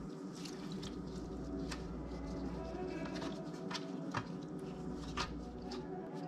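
Raw shrimp being laid and squished into a pan of milk by gloved hands, with soft wet pats. A few sharp clicks and taps as the pans and flour bowl are handled, the loudest a little after four and again after five seconds in.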